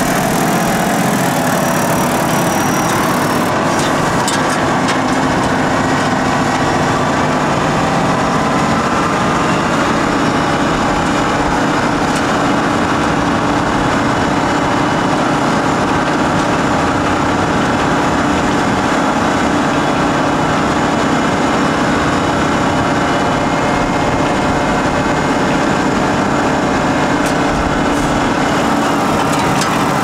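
Volvo L150H wheel loader's diesel engine running steadily, an even, unbroken engine drone.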